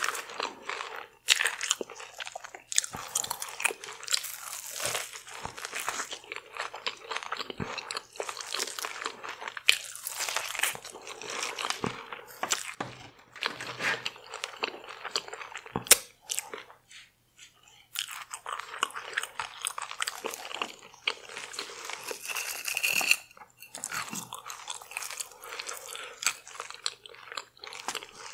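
Close-miked biting and crunchy chewing of deep-fried, Doritos-coated seafood, with a short pause a little past the middle.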